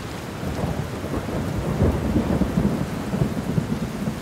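Heavy rain falling steadily with thunder rumbling through it, the rumble strongest about two seconds in and easing off toward the end.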